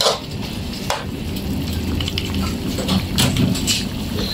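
Wok of bok choy and squid in oyster-sauce broth simmering and sizzling on a portable gas stove, a steady hiss over a low hum, with a few light knocks of the spatula against the wok.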